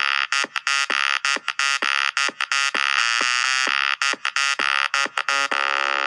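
Background music: a bright, buzzy lead sound playing short, rapidly repeated notes whose pitch shifts from phrase to phrase.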